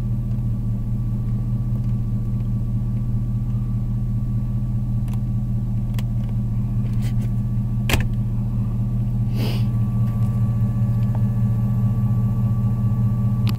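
Cadillac Escalade's V8 engine idling steadily as a low, even drone, with a couple of sharp clicks about eight seconds in.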